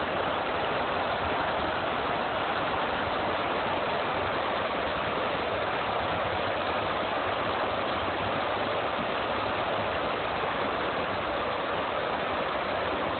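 Steady rush of floodwater surging down stone riverside steps in white waves, under heavy rain.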